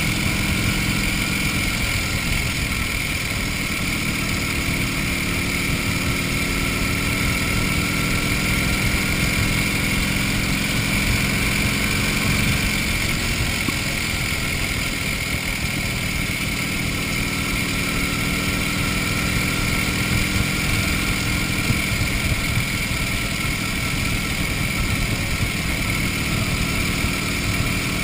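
1931 Indian 101 Scout's flathead V-twin engine running steadily as the motorcycle cruises along the road. Its note drifts gently up and down without any sharp revving, over a steady rush of noise.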